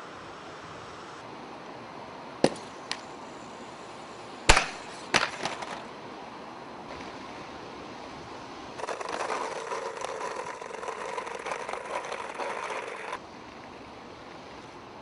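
An RC car hitting the ground: two sharp knocks, then a hard landing with a short clatter. Later comes about four seconds of rough rattling rolling noise, as it runs over a hard surface.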